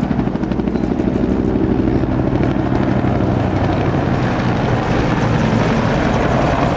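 Bell AH-1 Cobra attack helicopter flying past, its two-bladed main rotor making a rapid, steady thumping over the engine noise.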